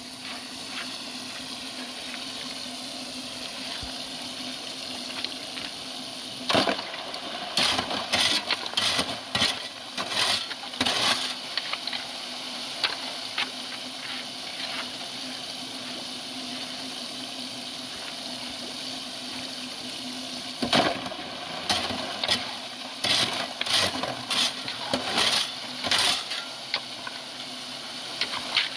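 Running water, broken by two spells of sharp splashing and clattering: one from about six to eleven seconds in, and another from about twenty to twenty-six seconds in.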